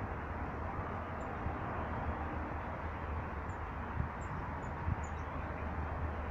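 Steady low outdoor rumble with about six faint, very high-pitched bird chirps scattered between about one and five seconds in, and a couple of soft low thumps.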